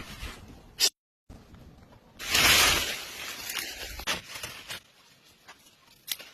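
A loud hiss that swells about two seconds in and fades away over the next two seconds, with scattered clicks and knocks around it; the sound drops out completely for a moment about a second in.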